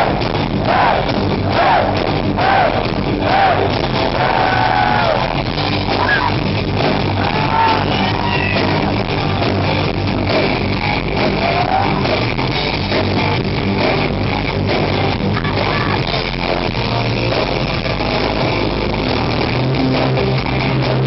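Power metal band playing live, with distorted electric guitars, bass and drums, heard from within the crowd through a camera microphone. Voices sing over the band in roughly the first nine seconds.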